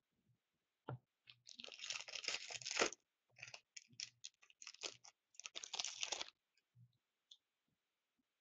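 Trading card pack wrapper being torn open and crinkled by hand, crackling in two spells, the first about a second and a half in and the second about three seconds in, with a few small clicks of cards being handled near the end.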